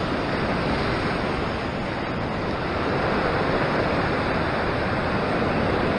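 Ocean surf churning and washing over a rock ledge: a steady rush of white water.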